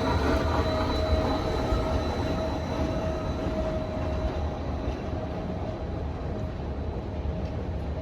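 Steady rumbling running noise of a vehicle in motion, with a faint steady whine over it, easing slightly toward the end.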